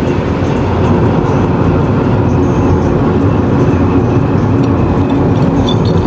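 Steady rumble of road and engine noise inside a moving car's cabin.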